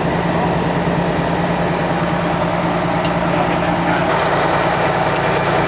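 Miniature railway locomotive engine idling steadily with an even low hum, plus a couple of faint light ticks.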